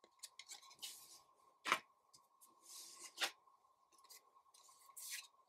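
Trading cards being handled: soft swishes of cards sliding and rubbing against each other, with two sharp clicks a second and a half apart near the middle.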